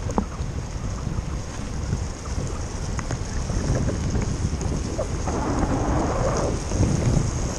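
Wind rumbling on the camera microphone of a bicycle rolling fast down a wet road, with tyre hiss on the wet asphalt. A louder stretch of hiss lasts about a second late on.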